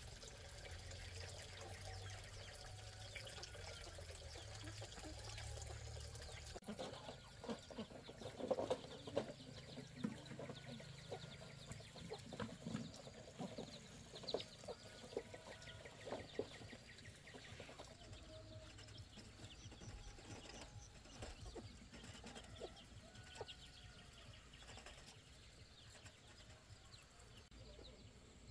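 Chickens clucking faintly, with scattered short knocks and clicks, busiest in the middle.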